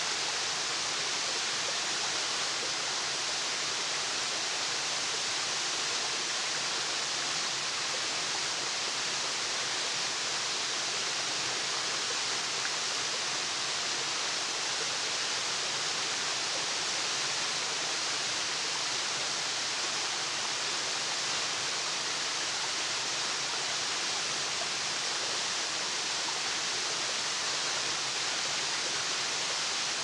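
Waterfall: a steady, even rush of falling water, strongest in the hiss and with little low rumble.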